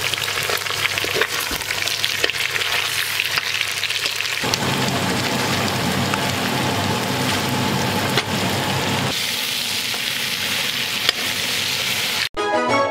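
Food frying in hot oil: a steady sizzle with scattered crackling pops, changing abruptly in tone about four and a half seconds in and again about nine seconds in. It cuts off just before the end, where plucked-string music begins.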